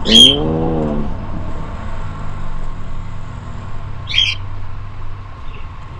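Motorcycle engine idling low and steady, with a loud call that rises and falls in pitch about a quarter second in and a short, higher call about four seconds in.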